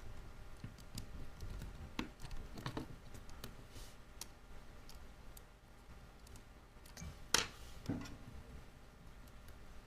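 Scattered small clicks and taps from handling an iPhone 8 Plus's screen and parts during reassembly. The sharpest two come about seven and eight seconds in.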